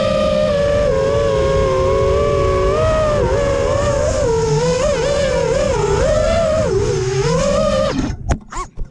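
Brushless motors and propellers of an FPV racing quadcopter whining from onboard, the pitch wavering up and down with the throttle, with wind rushing over the microphone. About eight seconds in the motors cut off abruptly and a few sharp knocks follow as the quad crashes.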